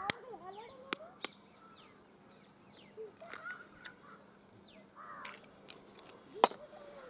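A steel spoon tapped against an egg's shell to crack it, a few sharp clicks near the start and another near the end, with birds chirping in the background.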